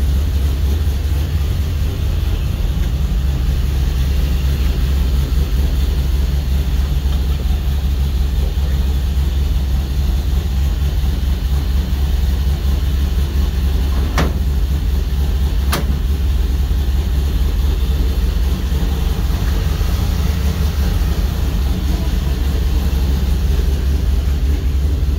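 Holden VN Commodore's 304 V8 idling steadily with a mild idle, 'not lumpy enough'. Two sharp clicks come from under the bonnet about halfway through.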